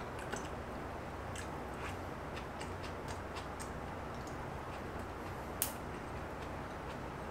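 A person eating: soft chewing and scattered small clicks of chopsticks against a stainless steel meal tray and rice bowl, with one sharper click about five and a half seconds in, over steady background noise.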